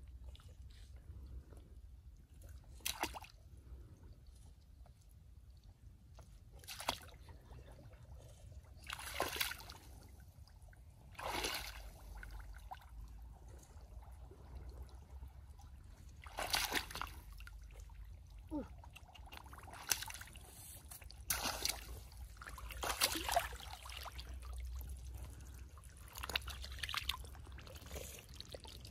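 Bare feet and hands in shallow muddy water, splashing and sloshing in short irregular bursts, with a steady low rumble underneath.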